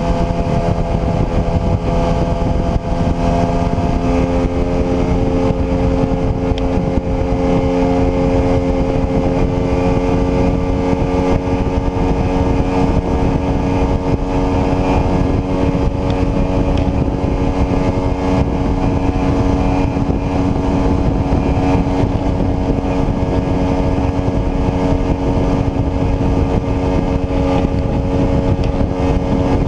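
KTM RC200's single-cylinder engine running at a steady cruise, its note rising gently over the first few seconds and then holding, under heavy wind rumble on the microphone.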